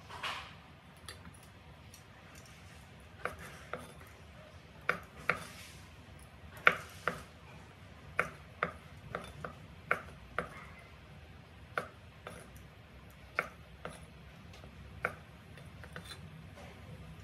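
Cleaver chopping through white beech mushrooms on a wooden cutting board: more than a dozen sharp knocks of the blade on the board, spaced irregularly.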